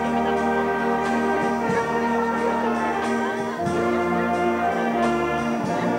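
Wind band of clarinets, saxophones and brass playing a slow piece in long held chords that change every second or so.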